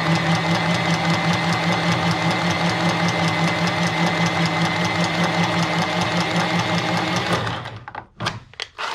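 Milwaukee Inox cordless pipe cutter running as it cuts through a carbon steel press-fit pipe: a steady motor whine with a fast, even rattle. It stops about seven and a half seconds in, followed by a few clicks and knocks.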